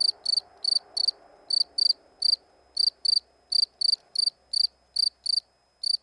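European field cricket calling: a steady series of short, high-pitched chirps, about two to three a second.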